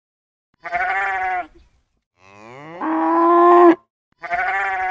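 Cow mooing once, a single call about a second and a half long that rises in pitch, then holds steady and grows louder before cutting off.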